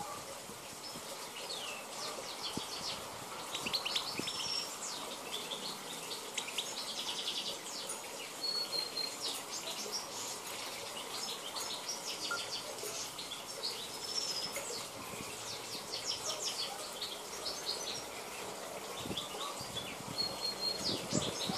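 Wild-caught European goldfinch of the Balkan race (Carduelis carduelis balcanica) singing a fast twittering song of short high chirps and trills, with a few brief steady whistled notes.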